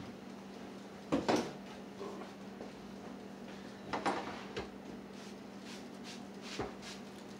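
Kitchen handling sounds: a few knocks and clatters of things being set down and moved about on a wooden cutting board and countertop, the loudest about a second in and a lighter run of taps near the end. Under them a steady low hum, the air fryer running.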